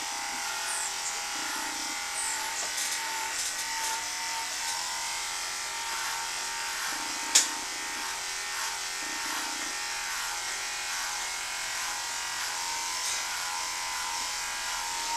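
Cordless dog grooming clippers running steadily with a high, even hum as they clip an American Cocker Spaniel's back coat, with one sharp click about seven seconds in.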